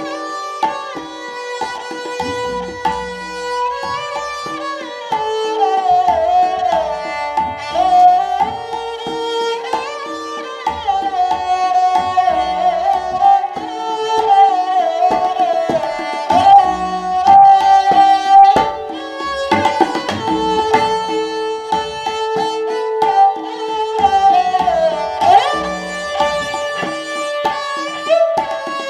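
Sarangi playing a sliding, ornamented melody over a tabla keeping a steady rhythmic accompaniment.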